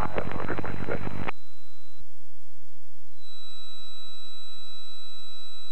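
Light-aircraft engine drone in the cockpit cuts off abruptly about a second in. About two seconds later a faint, steady, high electronic beep-like tone comes in and holds.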